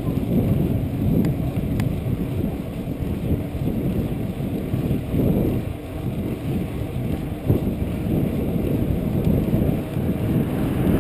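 Wind buffeting the microphone of a chest-mounted GoPro on a moving bicycle, a loud, unsteady low rumble with the bike's tyres running on concrete underneath. A single sharp knock comes about seven and a half seconds in.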